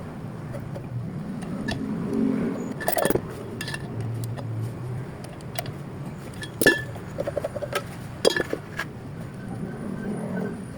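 Metal engine parts and hand tools clinking and knocking as they are handled during an engine overhaul, with three sharper clinks and a short rapid rattle partway through.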